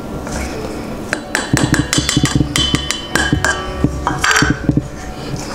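Background music with a steady bass and a run of crisp percussive clicks.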